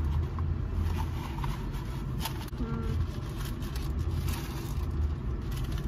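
Steady low rumble of a car interior with the engine running, under small rustles and clicks of food being handled and eaten. A short hummed voice sound about three seconds in.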